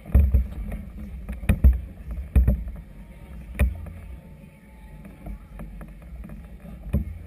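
Wind buffeting a GoPro's microphone in gusts over choppy water, with about five sharp knocks, the loudest around a second and a half in and near three and a half seconds.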